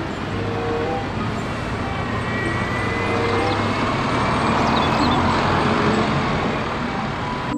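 Single-deck city bus pulling away, its engine running under load with a faint rising whine, amid steady street traffic noise that swells around the middle as the bus passes.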